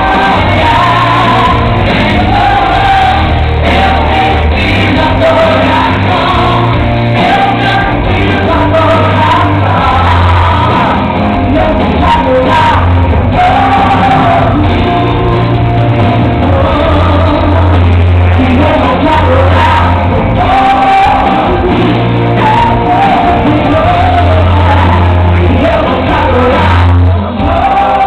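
A woman sings a gospel song live into a microphone over loud amplified backing music with heavy sustained bass notes.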